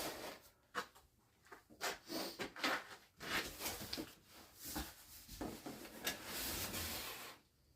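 Packaging and boxed parts being handled: irregular rubbing, scraping and knocking, with a longer stretch of rustling and scraping near the end that stops abruptly.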